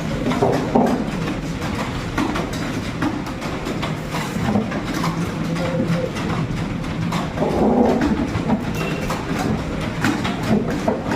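Fast computer keyboard typing: a dense, steady clatter of keystrokes during a timed typing speed test.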